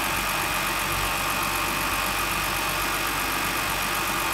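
BMW X5 E70 engine idling steadily, heard close up in the open engine bay while it warms up to bleed air from the cooling system.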